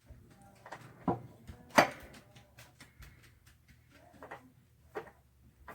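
A few scattered knocks and clanks of hands and tools on metal plumbing while an old electric water heater is disconnected and taken out, the loudest about two seconds in.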